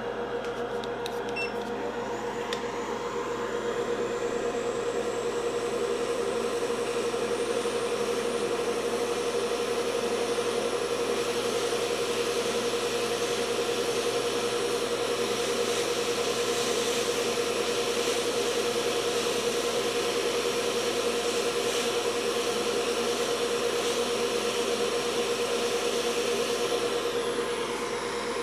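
Steady whooshing fan noise with a constant hum from electronics rework equipment. It grows a little louder a few seconds in and eases off near the end.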